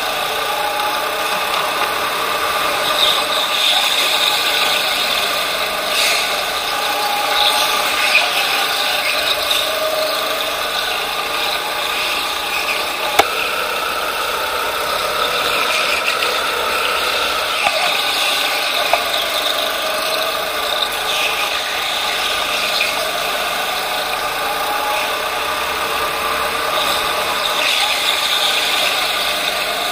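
Racing kart at speed, heard from a camera mounted on the kart: a motor whine that rises and falls as the kart brakes and accelerates through corners, with rattling from the chassis. A few sharp knocks, the loudest about 13 seconds in.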